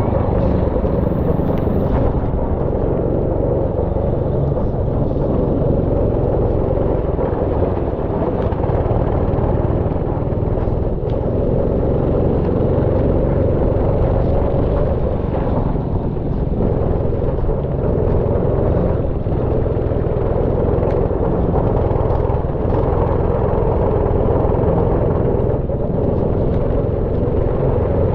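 Go-kart engine running steadily while the kart is driven around the track.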